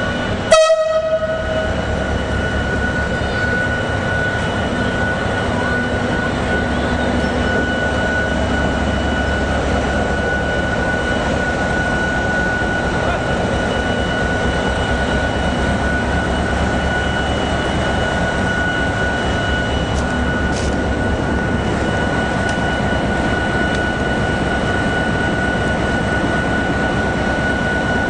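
Locomotive horn gives one short blast about half a second in. The locomotive then runs steadily, with a low rumble and a constant high whine, as it departs.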